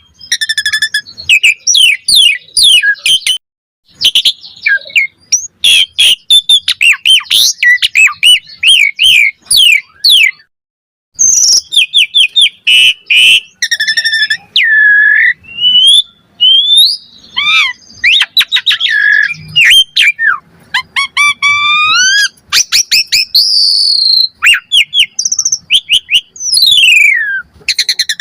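Asian pied starling (jalak suren) singing a long, varied song in full voice: quick chirps, rising and falling whistles and slurred notes, with short breaks about three and a half seconds in and again near ten seconds.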